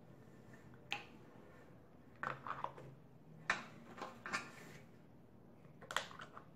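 Plastic popsicle-mould tops being pressed onto their cups: a series of light clicks and taps, a second or so apart, over a quiet room.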